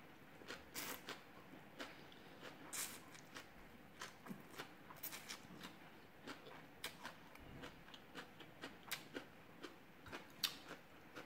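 Faint eating sounds: khanom jeen rice noodles slurped from a fork and chewed, a steady scatter of small wet mouth clicks and smacks, several a second.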